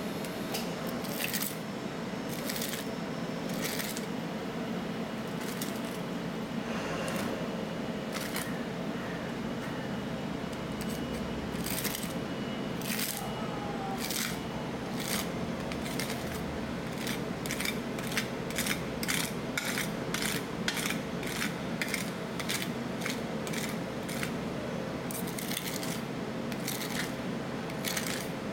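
Metal spatulas clacking and scraping on the steel freezing plate of a rolled-ice-cream machine, in irregular strokes that come in quick runs of several a second, over the steady hum of the machine.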